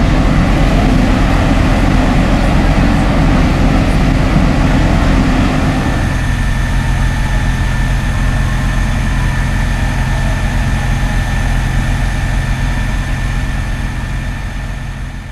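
City shuttle bus engine idling: a steady low hum with a thin high whine over it. The broader rushing noise drops away about six seconds in, and the sound fades out at the end.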